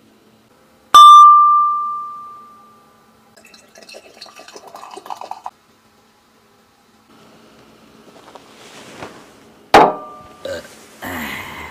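A drinking glass is struck once about a second in and rings clearly for about two seconds. Beer is then poured and fizzes into a stemmed beer glass for about two seconds. Near the end the glass knocks and rings again, followed by a few smaller knocks.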